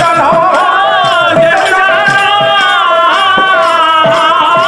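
Pala accompaniment music: a held, slightly wavering melody line over drum strokes and jingling small cymbals.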